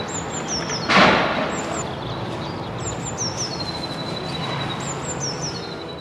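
Eurasian blue tit singing its song three times. Each song is two or three thin high notes falling in pitch, followed by a level trill. A short loud whoosh of noise comes about a second in.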